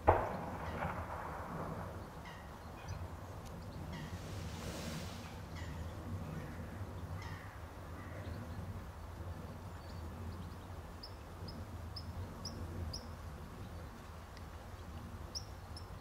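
Birds calling in the background: scattered short calls, then a quick run of about five high notes near the end, over a steady low rumble. A single sharp knock right at the start is the loudest sound.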